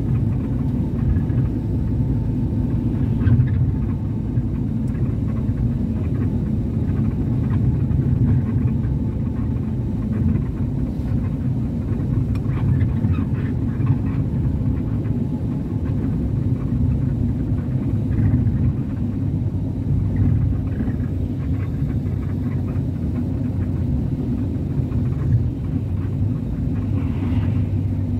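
Steady low rumble of engine and road noise inside a moving vehicle while it drives along a street.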